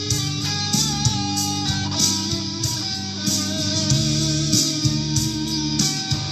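Electric guitar, a 2005 Gibson Les Paul Supreme, playing a melody over a backing track with a steady beat and a bass line.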